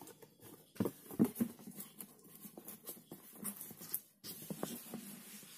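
Hands handling a cardboard box and its packaging: irregular rustling, scraping and soft knocks, loudest about a second in.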